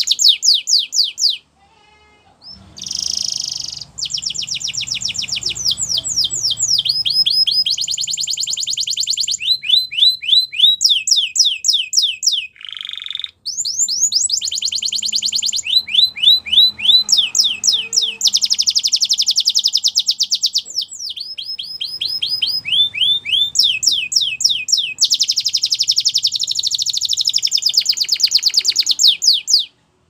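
Canary singing a long, fast song made of rapid trills, each a quick run of one repeated note, switching to a new trill every second or two, with a short pause about two seconds in and a brief one about halfway.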